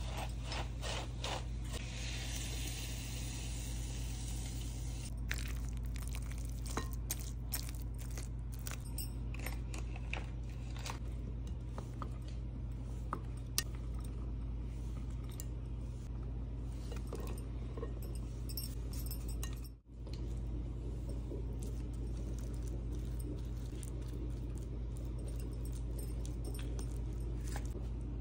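A wooden spoon scraping and crunching through dry stuffing in a glass bowl, then a knife cutting a block of cheese on a wooden board with many scattered clicks and taps, over a steady low hum.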